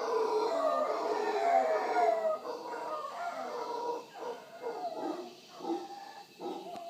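Mantled howler monkeys howling: long, loud drawn-out calls for about the first two seconds, giving way to a run of shorter, quieter pulsed calls, about two a second, that fade toward the end.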